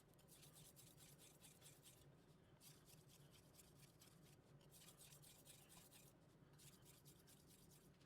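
Kitchen knife blade drawn back and forth over a 2000-grit whetstone: a quiet, fine scraping in runs of quick strokes, with short pauses about two, four and a half and six seconds in. It sounds soft because the fine polishing stone scrapes less.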